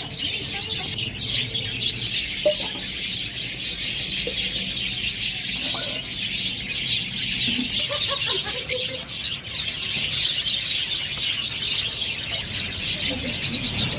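A flock of caged lovebirds and budgerigars chattering, a dense and continuous high chirping from many birds at once.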